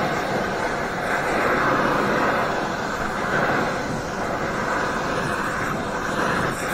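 Gas brazing torch burning with a steady hiss as its flame heats a cast iron exhaust manifold and melts brazing rod into the repair.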